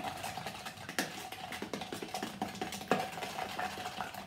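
A spoon beating an egg with sugar and cinnamon in a plastic jug: quick clicking and tapping against the jug, with two louder knocks about a second in and just before three seconds.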